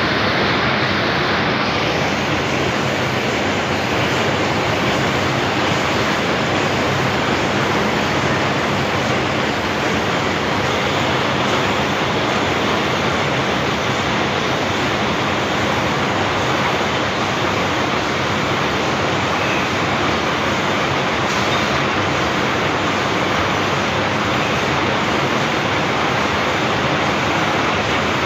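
Packing machine for water-gallon cap seals (tissue galon) running continuously, with a loud, steady, even mechanical noise that does not change.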